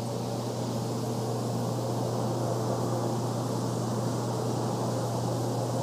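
Steady machinery hum of a factory floor: a constant low hum under an even rushing noise, unchanging throughout.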